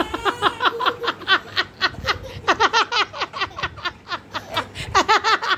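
High-pitched laughter in a quick run of short 'ha' bursts, about five a second, each dropping in pitch. It thins out a little before four seconds and picks up again about five seconds in.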